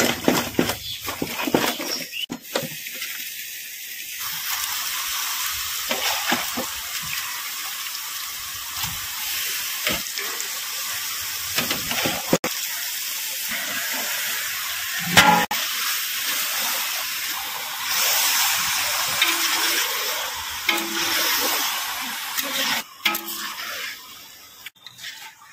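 Marinated chicken pieces going into hot oil and spice paste in a large iron kadai, with a steady sizzle from about four seconds in. A metal spatula scrapes and knocks now and then as the chicken is stir-fried.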